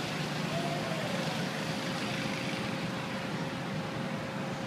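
Steady outdoor noise of road traffic, with a thin steady hum underneath.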